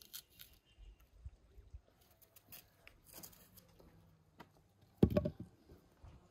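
Knife cutting through raw apple: scattered small clicks and crunches, with one heavy thump about five seconds in.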